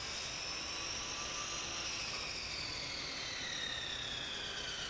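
Workshop machine's electric motor whirring, with a faint high whine that slowly falls in pitch as it spins down.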